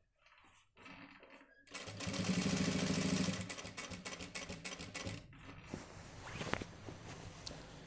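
Industrial lockstitch sewing machine stitching in one loud, rhythmic run that starts about two seconds in and lasts about a second and a half. Quieter, uneven sounds follow as the cloth is handled at the machine.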